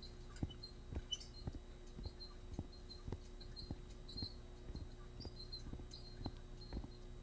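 Soft low thuds repeating evenly about twice a second over a steady electrical hum, with faint high squeaky chirps scattered through.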